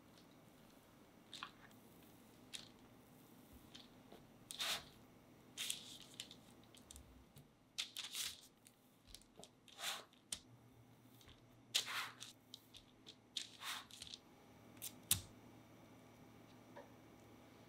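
Cutting rounds from a sponge cake sheet with a stainless steel ring cutter on parchment paper: irregular short rustles and soft crunches as the cutter presses through the sponge, the paper shifts and the cut pieces are pulled free, with a couple of sharper taps near the end.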